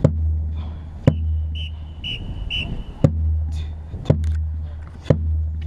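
Marching bass drum struck close up: five single hits spaced about a second apart, each with a deep ringing boom after it. In the middle a high beep pulses three times, half a second apart.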